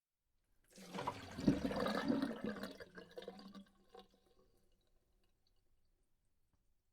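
A short rush of water starting about a second in, loudest for a second or two, then dying away, with a single click near the end of it.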